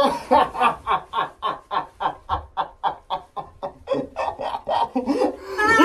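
A person laughing in a long run of short, rapid, evenly spaced bursts, about four or five a second, breaking into a louder, held cry at the very end.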